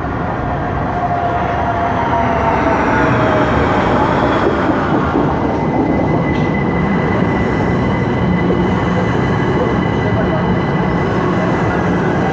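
London Overground Class 378 electric train running into the platform, its motor whine falling in pitch over the first few seconds as it slows, over a loud rumble and squeal of wheels on rail. A steady high tone holds from about halfway.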